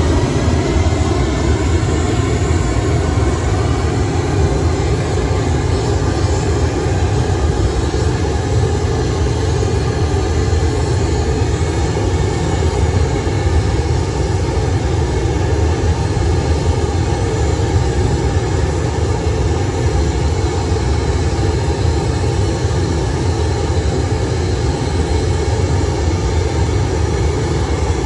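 Pink noise played at high level over a loudspeaker, a steady, unchanging hiss with a deep rumble beneath it. It is a test signal for measuring how much sound the building's walls let through.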